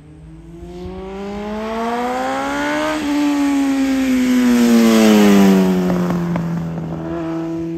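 Kawasaki Z1000J racing motorcycle's air-cooled inline-four engine passing by. Its pitch rises for about three seconds as it accelerates, then falls as it slows for a corner, loudest about five seconds in, then holds a lower steady note through the turn.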